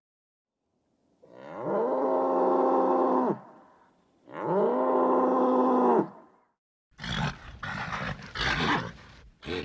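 A bull bellowing twice, each a steady low call about two seconds long, followed by a quick run of short, noisy snorts and breaths.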